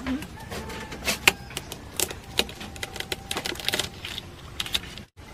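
Irregular sharp clicks, taps and scrapes of a serrated knife blade working against a live mud crab's shell on bamboo slats.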